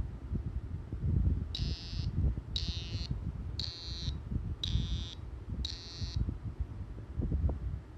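ASUS ROG Phone vibrating in five half-second pulses, about one a second, each a high buzz. This is the abnormal vibration noise that the owner takes for a fault.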